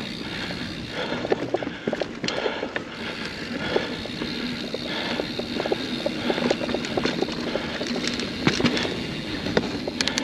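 Mountain bike ridden over rough trail: a steady rolling rumble from the tyres, broken by many short sharp knocks and rattles from the bike over bumps.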